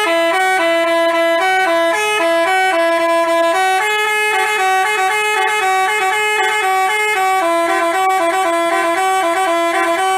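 Telolet bus horn (Basuri-type multi-tone horn) playing a fast melody of short notes that step quickly from one pitch to the next.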